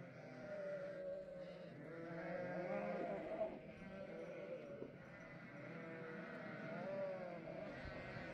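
A flock of sheep, ewes and young lambs, bleating continuously, with many calls overlapping.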